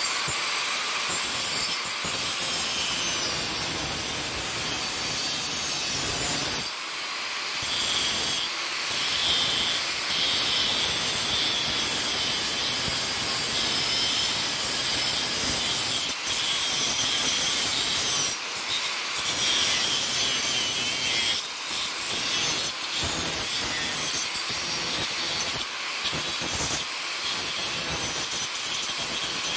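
Angle grinder with a thin cut-off wheel cutting through tacked-together sheet steel, a loud, continuous high-pitched grinding with several brief dips in level.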